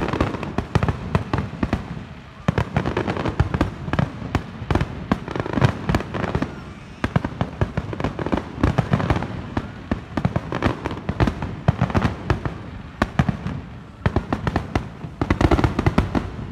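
Aerial fireworks display: a rapid, dense barrage of shell bursts and bangs, easing briefly a few times and ending in a thick flurry.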